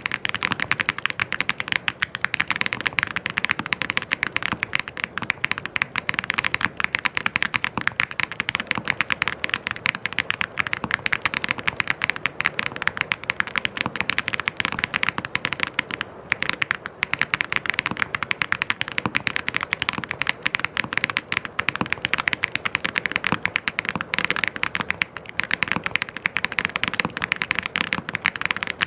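Mechanical keyboard being typed on fast and without letup, a dense stream of keystroke clicks, with a brief pause about sixteen seconds in.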